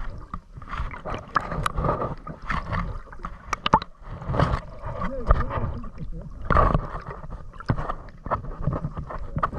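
Seawater splashing and gurgling close around an action camera, in irregular surges with short clicks, the biggest surge about six and a half seconds in.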